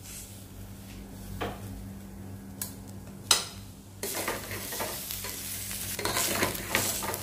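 Metal spoon stirring and scraping rice, dal and vegetables frying in a pressure cooker pan, with a faint sizzle. A few clinks in the first half; from about four seconds in, the stirring gets louder and continuous.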